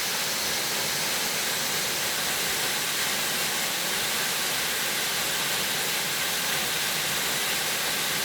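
Mountain stream water rushing steadily, an even hiss of water with no breaks.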